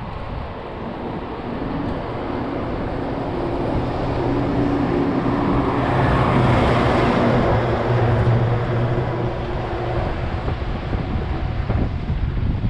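A motor vehicle passes close by: its engine and tyre noise build up, are loudest just past the middle and then fade, over a steady low rumble.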